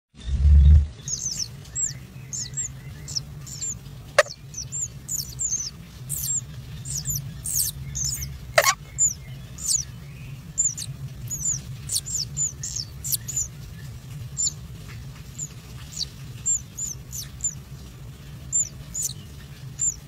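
Kingfisher nestlings cheeping to beg for food: short, high, falling chirps repeated irregularly, one to three a second, over a low steady hum. A low thump comes at the very start, and two sharp clicks come about four and eight and a half seconds in.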